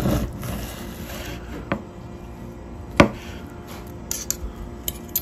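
Chef's knife slicing through a grilled steak on a wooden cutting board: the blade rasps through the meat, then knocks against the board twice, the second time sharpest about three seconds in, followed by a few lighter clicks near the end.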